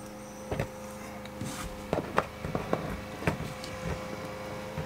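Light, irregular clicks and taps of fingers working at a plastic rocker switch and its opening in an RV wall control panel, over a steady low hum.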